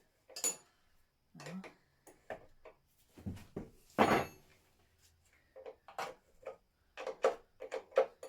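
Hand tools and sockets clicking and clattering as fittings are tried on a motorcycle's fastenings, with one louder knock about four seconds in and a quicker run of clicks near the end.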